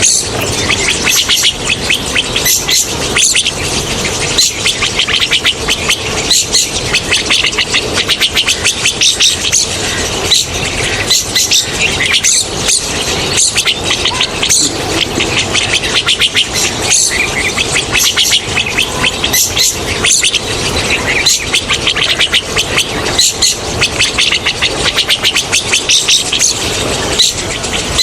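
Rosy starlings chattering: a loud, unbroken stream of rapid, overlapping high calls.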